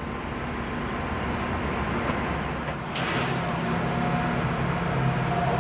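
Hitachi hydraulic excavator's diesel engine running steadily, growing louder over the first second. About three seconds in the sound cuts to a closer, slightly louder engine note with a faint steady high whine over it.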